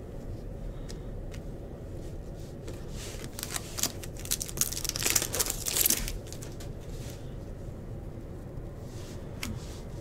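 Stack of trading cards being handled and slid against one another: a run of dry rustling and flicking clicks, heaviest between about three and six seconds in, with scattered single clicks before and after.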